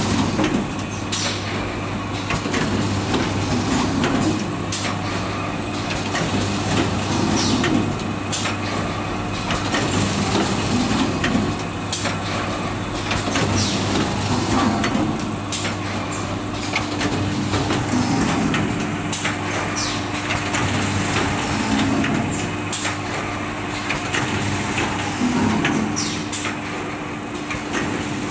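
Automatic paint roller finishing machine running: a steady hum of motors and rotating brushes, with sharp clicks and knocks every second or two as its stations cycle.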